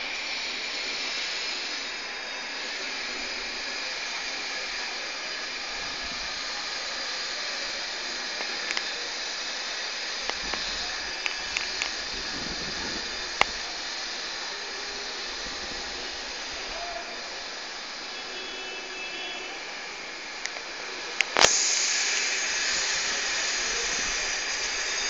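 Steady hiss of outdoor background noise, with a few scattered sharp clicks and one louder click about 21 seconds in, after which the hiss is louder.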